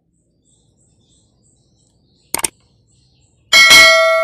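Faint high bird-like chirps, then a quick double click and a sudden loud bell-like ring with several pitches that fades away over about a second.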